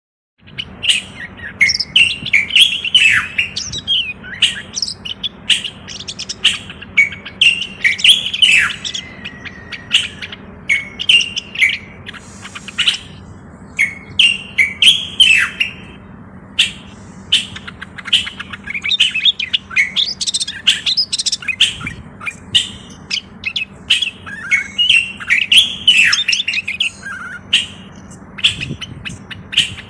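Common bulbul (Moroccan bulbul) singing: a continuous run of loud, varied whistled phrases and sharp chirps. A faint steady hum sits underneath.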